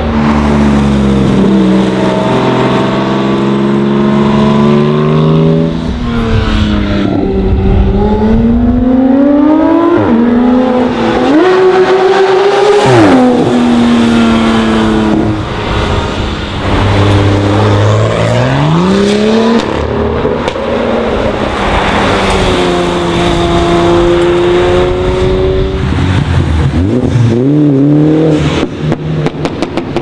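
Several performance cars accelerating past one after another, their engines revving up and dropping back through the gear changes. A quick run of sharp exhaust cracks comes near the end.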